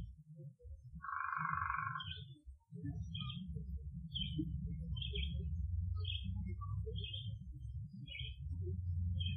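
Short high animal chirps repeating about every two-thirds of a second over a steady low rumble, with one held, even tone lasting about a second near the start. The recordist takes these sounds for Bigfoot vocalizations.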